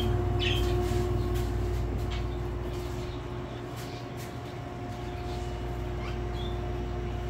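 Steady machine hum, with a few short, high budgerigar chirps now and then.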